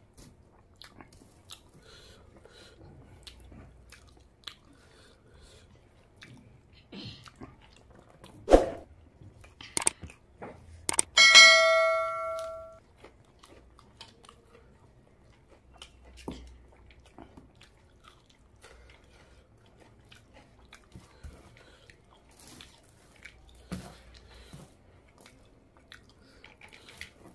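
Eating by hand: soft chewing, mouth clicks and the squish of curry-soaked rice being mixed and gathered with the fingers. A sharp knock comes about eight and a half seconds in, and about eleven seconds in a bright ringing chime sounds and dies away over about a second and a half.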